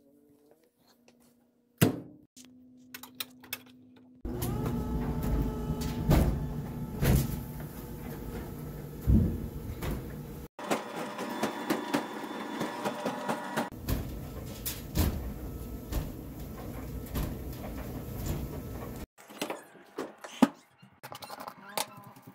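Clothes dryer running with a towel-wrapped, taped-up bundle tumbling in the drum, thumping heavily over the motor hum. A sharp knock comes about two seconds in, before the dryer starts. Light clicks and knocks follow once it stops near the end.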